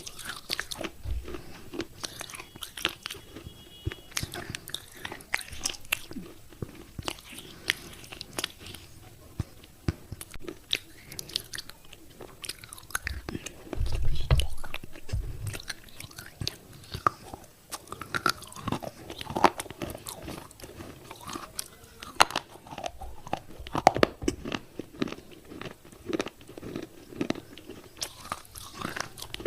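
Pieces of wet clay pot being bitten and chewed, a steady run of sharp crunches and crackles. There is a brief low thump about 14 seconds in.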